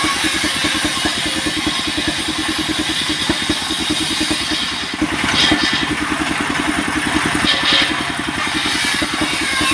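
An engine running steadily with a fast, even pulse, with brief higher-pitched noise about five seconds in and again near seven and a half seconds.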